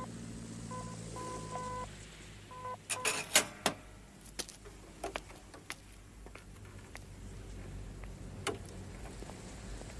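A telephone line tone beeping on and off in a payphone handset for the first couple of seconds. About three seconds in comes a brief clatter of sharp knocks, the loudest sound here, then scattered single footsteps.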